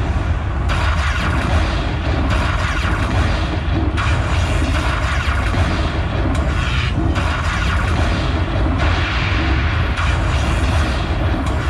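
Lightning Buffalo Link slot machine's bonus tally: the game's booming thunder-and-lightning effects over its music, coming again every second or two as each collected buffalo's credit value is added to the win at the end of the free spins.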